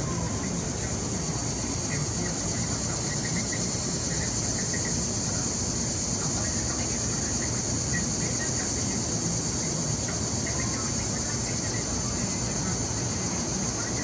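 Cicada buzzing: a steady, high-pitched drone that holds without a break.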